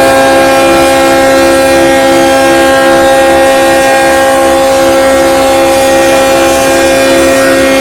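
Locomotive horn held in one long, loud, unbroken blast, several notes sounding together as a chord, one with a slight pulsing waver.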